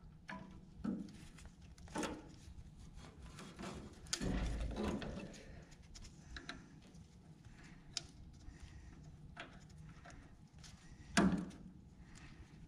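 Faint scattered clicks and taps of a screwdriver and fittings on an IH 444 tractor's carburetor linkage as it is fitted. There is a dull bump about four seconds in and a louder single knock near eleven seconds in.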